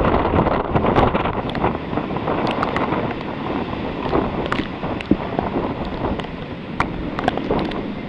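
Gusty typhoon wind buffeting the microphone, strongest in the first second or so. Many small sharp ticks are scattered through it.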